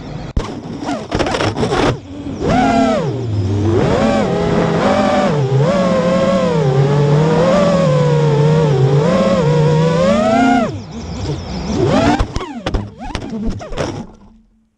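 Racing quadcopter's four Xing 2306 2450kv brushless motors and propellers whining, the pitch rising and falling as the throttle is worked. Near the end the sound turns choppy with clicks as the quad strikes pine branches and needles, then cuts out as the motors stop.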